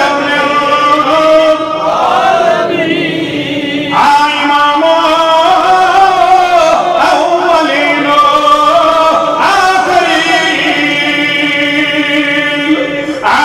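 A man's voice chanting in long, melodic held notes that bend slowly up and down in pitch, with brief breaks for breath. It is a sung recitation amplified through a headset microphone.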